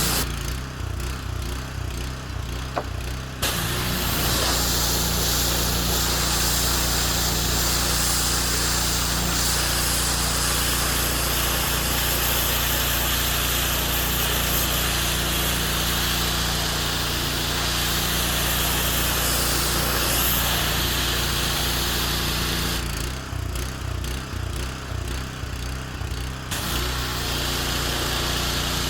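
Small petrol engine running steadily under load, with a loud hissing noise over it. Twice, for about three seconds each time, the hiss drops away while the engine keeps running.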